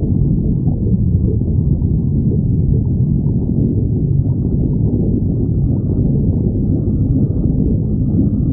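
Stomach growling recorded up close: a loud, continuous low rumble with no breaks.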